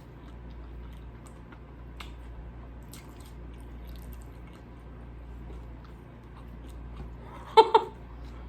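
A person chewing a sub sandwich with their mouth, giving soft scattered mouth clicks. Near the end comes a short, loud voiced sound from the eater in two quick pulses.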